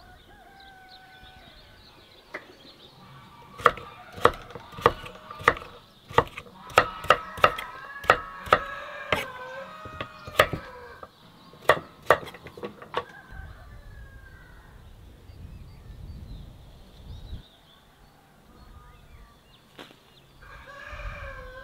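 A kitchen knife chops pumpkin into cubes on a thick wooden board. It gives a run of about fourteen sharp knocks, a little under two a second, for about nine seconds starting a few seconds in.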